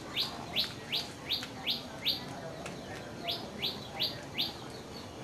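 A small bird calling a rapid series of short, downward-sweeping chirps, about three a second: a run of six, a pause of about a second, then four more.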